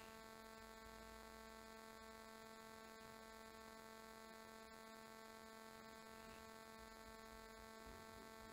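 Near silence with a faint, steady electrical hum made of several even tones.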